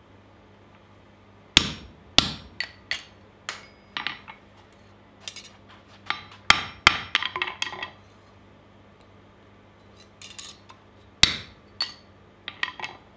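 Hammer blows on a hand punch driving a hole through a small red-hot steel disc on an anvil: sharp metallic hits in two irregular runs, with a pause of about two seconds between them.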